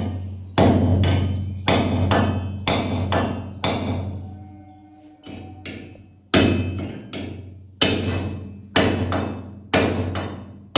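Hammer blows on the anchor bolts in a steel wall-mounting plate of a pull-up bar, driving them home into the wall. Sharp ringing metal strikes come in quick runs of two to four, about three a second, with a short pause a little before the middle.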